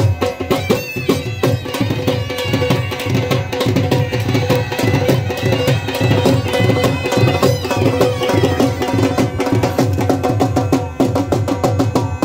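Live traditional folk music: a dhol drum beating a fast, steady rhythm, with a sustained melody held over the drumming.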